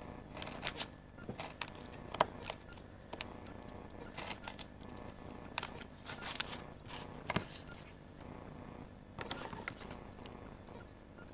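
A knife blade cutting small notches out of a thin wooden fruit-crate board: irregular sharp clicks and short scrapes as chips of wood snap off.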